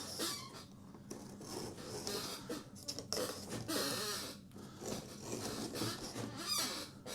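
Utility knife blade being drawn along the frame beside the spline, slicing off excess window screen mesh in several uneven scraping strokes, the longest about three seconds in.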